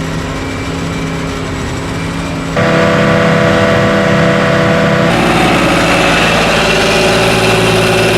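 Engines of a forage harvester and farm tractors running steadily under load. The sound changes abruptly twice, about two and a half and five seconds in, getting louder at the first change.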